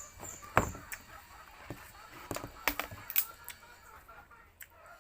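Sharp, crisp cracks of sugarcane being bitten and chewed: a loud one about half a second in and three or four more around the middle. Chickens cluck faintly in the background.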